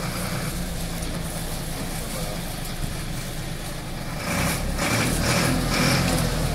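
Tractor engine running steadily, driving a corn thresher; the noise gets louder about four seconds in.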